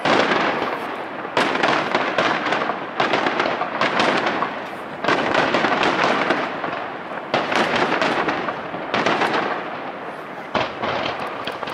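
Aerial firework shells bursting one after another, about every one to two seconds. Each burst is a sharp bang trailing off into a long echo.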